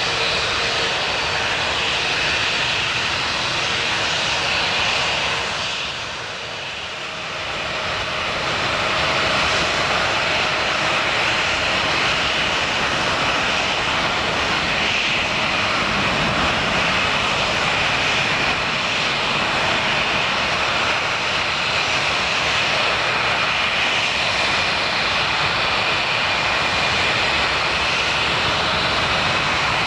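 Twin-engine jet airliner's turbofans at takeoff power on a close-up departure: a loud, steady jet noise with high whining tones over it. It dips briefly about six seconds in, then comes back up and holds.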